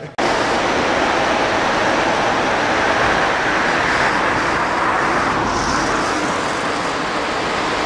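River water rushing over rocky rapids: a loud, steady rush that starts suddenly just after the start.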